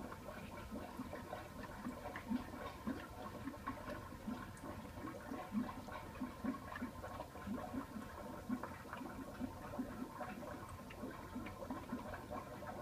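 Aquarium water bubbling and gurgling continuously, with many small irregular bubble pops several times a second over a steady faint hum.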